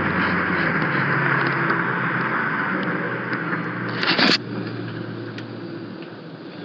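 A motor vehicle running, gradually fading away, with a short loud noise about four seconds in.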